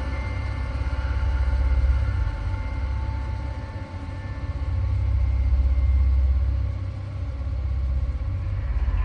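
Dark ambient background drone: a deep rumble that swells and fades every few seconds, with faint high tones held over it.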